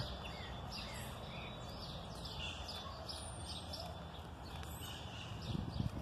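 Several birds chirping and calling in the trees, short high notes with a few quick falling whistles, over a steady low background hum. A few soft knocks near the end.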